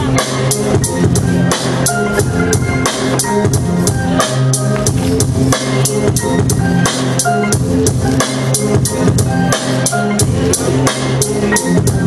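Electronic beat music played live on a pad controller and laptop: a steady drum pattern with about four strikes a second over held bass notes and short synth notes.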